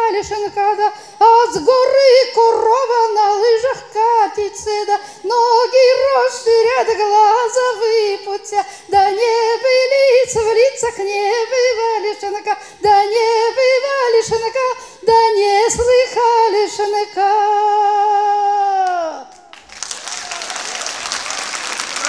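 A woman singing a traditional Pomor folk song solo and unaccompanied into a microphone, ending on a long held note that glides down and fades about nineteen seconds in. Audience applause starts right after it.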